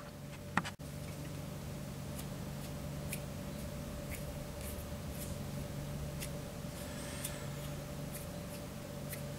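Quiet room tone: a steady low electrical hum with a faint higher tone above it, a sharp click about half a second in, and scattered faint ticks.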